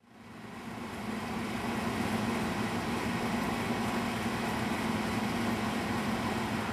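Steady engine hum over street noise, fading in over the first second and then holding level.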